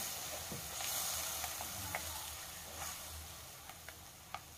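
Ground masala paste sizzling as it fries in a kadhai while being stirred, a soft steady hiss that slowly fades, with a few light ticks near the end.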